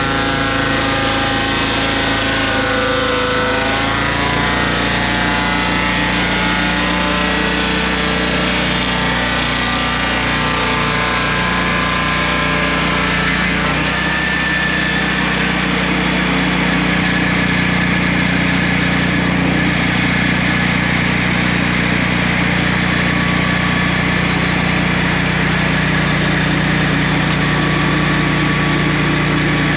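Engine of a Turbosawmill swingblade circular sawmill running steadily, its note shifting a few times.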